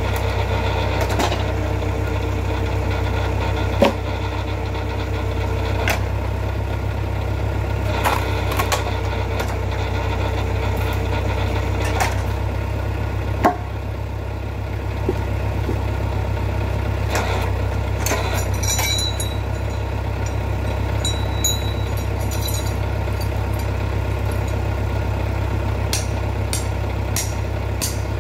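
Engine running steadily to power a vertical hydraulic log splitter, with a low hum throughout. A higher steady hum joins twice, while the splitter works. There are a few sharp cracks and knocks, the loudest about four seconds in and about thirteen seconds in.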